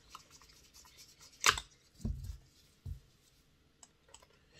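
Faint scraping and small clicks of a screwdriver and fingers working a screw out of a small OO-gauge model locomotive's chassis. There is a sharp click about a second and a half in, then two soft thumps.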